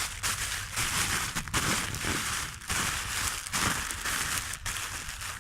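A plastic bag being scrunched up by hand, crinkling in irregular bursts.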